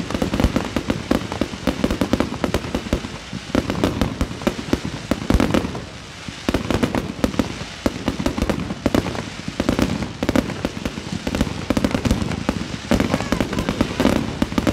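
Fireworks display: a dense, continuous run of bangs and crackling from aerial bursts and ground fountains, swelling and easing in waves, with a brief lull about six seconds in.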